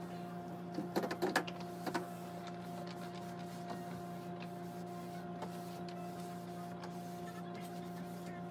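Refrigerator humming steadily, with a few light knocks and rubs in the first two seconds as the inside of the empty compartment is wiped.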